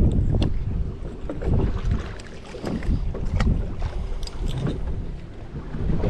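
Wind buffeting the microphone on an open boat, a low rumble that swells and fades, with a few light clicks and knocks of tackle being handled.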